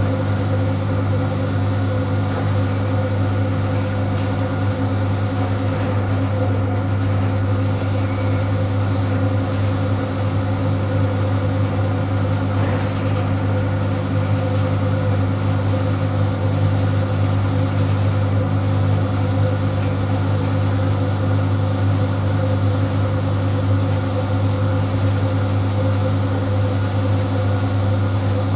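ED9M AC electric multiple unit running, heard from inside a passenger car: a steady low hum with overtones over the continuous noise of the ride.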